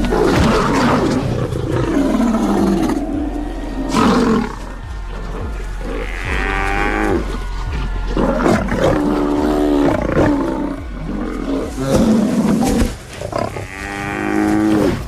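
Lions growling and snarling as they attack a Cape buffalo, which lets out three long bellows about six, nine and fourteen seconds in.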